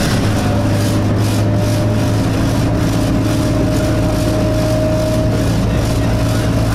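Inside an Alexander Dennis Enviro200 single-deck bus on the move: a loud, steady low drone from the running bus, with a steady higher whine that grows a little stronger past the middle. This is the annoying vibration noise in the bus's passenger saloon.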